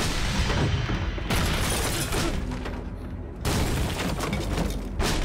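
Film sound effects of explosions: a blast rumbling on with debris and shattering glass, with fresh blasts about a second in and about three and a half seconds in.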